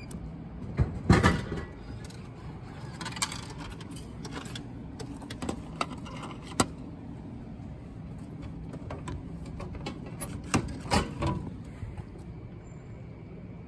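Coca-Cola drink vending machine dispensing a plastic bottle: a loud clunk about a second in as the bottle drops into the pickup tray. Scattered clicks and knocks follow, with another cluster near the end, as the flap of the pickup slot is pushed open and the bottle is taken out. A steady hum runs underneath.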